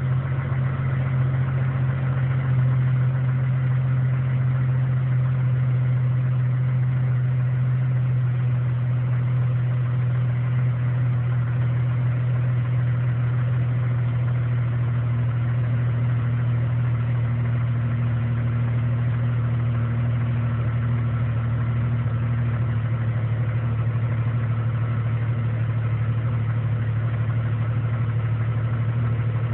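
A 1999 Jeep Cherokee's 4.0-litre straight-six engine idling steadily at a constant low pitch. It is the idle the owner calls rough, sagging low enough to come near stalling.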